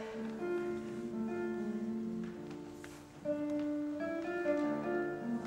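Classical guitar played solo: plucked chords and melody notes ringing on, with a strong fresh chord struck a little over three seconds in.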